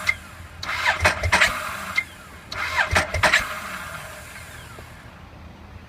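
Ducati 1198 L-twin being cranked on its electric starter in two short bursts about a second apart, neither catching: the engine is reluctant to start.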